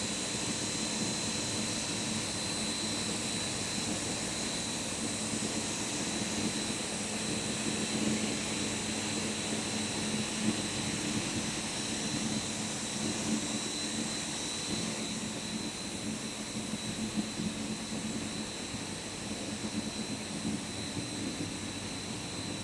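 Rubber extrusion and microwave curing line machinery running steadily: a constant mechanical hum with a thin high whine held on one pitch.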